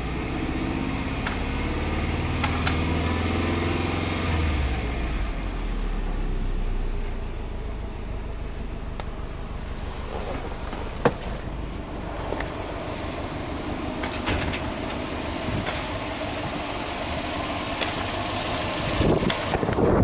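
Subaru Impreza WRX STI A-Line's turbocharged 2.5-litre flat-four (boxer) engine running at idle in park; its low note drops about four seconds in. A single sharp click comes about eleven seconds in, and the engine grows louder near the end.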